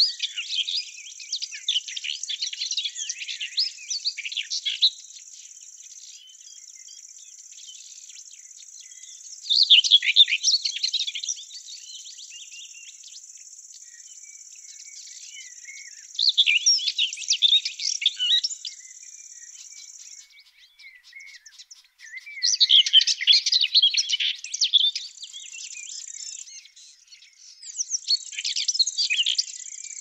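Small songbirds singing in short bouts of rapid, high chirps every few seconds, over a steady high-pitched insect trill that drops out briefly about two-thirds of the way through.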